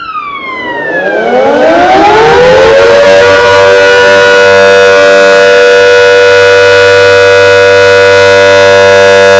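Fire station siren sounding a test call. It starts suddenly with a brief falling tone, rises in pitch over about three seconds, then holds a steady, very loud wail.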